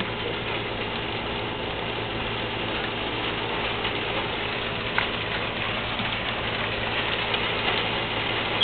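Large raindrops pattering on metal roofing and corrugated panels, a dense steady rush of small ticks with one sharper click about five seconds in. A faint steady hum runs underneath.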